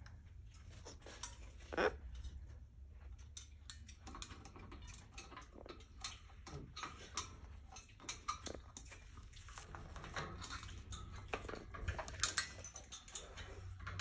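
A parrot moving about its cage: scattered clicks and taps of beak and claws on metal bars, perches and toys, with a few short soft calls.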